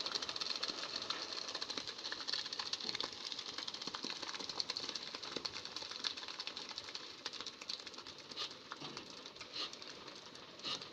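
Wet ready-mix concrete pouring down a mixer truck's chute onto the road, a dense rapid crackle and patter of stones and slurry that thins out slightly near the end.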